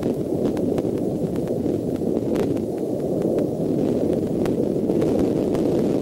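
Steady low rumbling noise of wind on an outdoor nest-camera microphone, with faint scattered clicks throughout.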